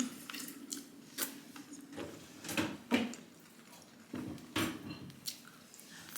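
Scattered small mouth clicks and soft chewing sounds of someone eating a chocolate-cream-filled Berliner doughnut, a few short sounds a second or so apart.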